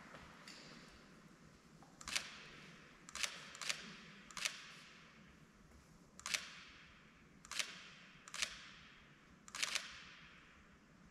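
Camera shutters clicking about eight times at irregular intervals as the wedding rings are exchanged, each click echoing briefly in the church.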